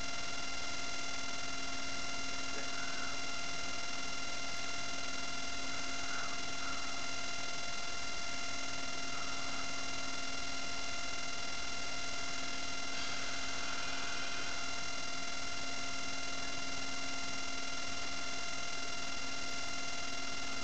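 Steady electrical hum: a constant buzz made of several fixed tones stacked from low to high over a faint hiss, unchanging in level.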